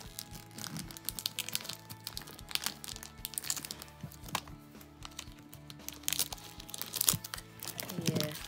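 Plastic shrink-wrap crinkling and crackling in quick, irregular snaps as it is peeled by hand off a new 3x3 speedcube, over background music.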